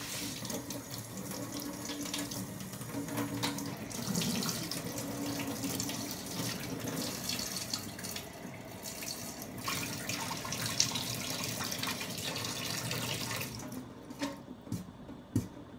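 Kitchen sink tap running, water splashing steadily into the sink, then shut off near the end, followed by a couple of light knocks.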